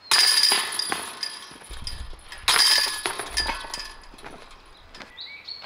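Disc golf basket chains crashing and jingling twice as discs hit them, about two and a half seconds apart, each hit ringing out and fading.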